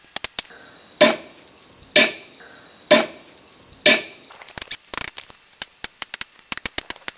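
Hammer blows on a metal punch held against a bent car-grille piece to work out a kink: four ringing strikes about a second apart, then a quick run of lighter taps as the hammer works through a wooden strip laid on the metal.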